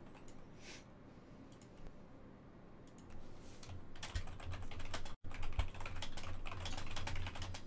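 Typing on a computer keyboard: a few scattered key clicks, then a fast, steady run of keystrokes from about three seconds in, broken by a split-second dropout in the audio.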